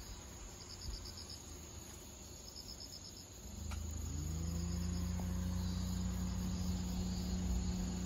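Insects chirping: two short trains of rapid pulses in the first three seconds over a steady high insect drone. About three and a half seconds in, an engine's low hum rises in pitch and settles into a steady drone, becoming the loudest sound.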